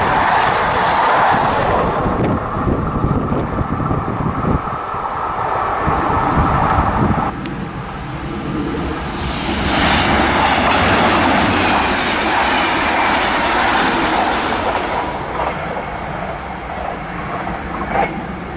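Two electric trains passing trackside. First a Normandy regional electric multiple unit rolls past close by, its wheels beating rhythmically over the rail joints. After an abrupt change about seven seconds in, an empty Z 22500 double-deck suburban electric unit runs past at speed, a rising then fading rush of wheel noise.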